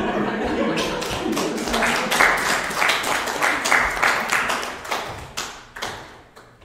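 Small audience applauding, individual claps distinct, thinning out and fading away over the last couple of seconds.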